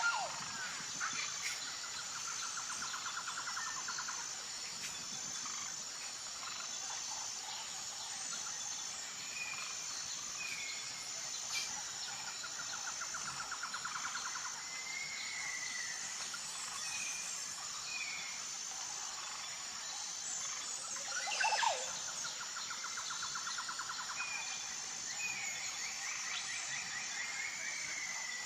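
Forest ambience: birds calling with short chirps and slurred whistled notes over a steady high insect whine. Pulsed trills lasting a few seconds recur three or four times. Two louder sweeping calls stand out, one at the very start and one about three-quarters of the way through.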